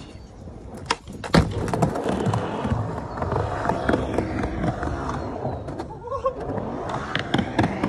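Skateboard wheels on a wooden mega ramp. Sharp clacks come about a second in as the board drops in, then a continuous rolling noise of urethane wheels on the plywood as the rider runs down the roll-in and across to the quarter pipe, with a short break in the sound near the end.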